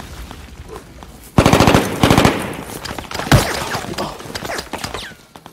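A rapid burst of automatic gunfire breaks out about a second and a half in and lasts about a second. A single loud shot follows, then scattered smaller shots.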